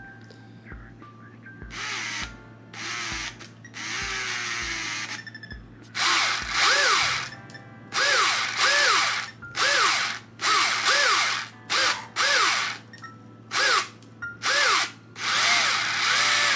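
Combat robot's drive motors, run through a budget dual ESC, spinning its wheels free off the ground in short bursts. Each burst rises and falls in pitch, repeated many times as the steering trim is tested, because one side starts before the other.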